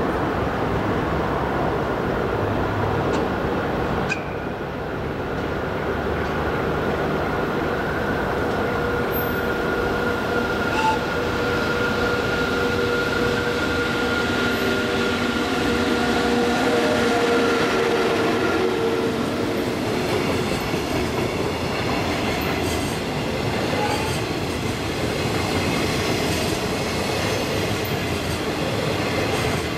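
An EF81 electric locomotive hauling a container freight train past, with a continuous rumble of wheels on the rails. A whine is heard through the middle as the locomotive comes by. It fades about two-thirds of the way in, as the container wagons roll past.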